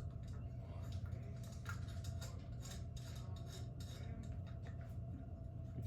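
Light metallic clicking and clinking as a track light fixture's metal mounting bracket is handled and fitted back on, a series of small irregular taps over a steady low hum.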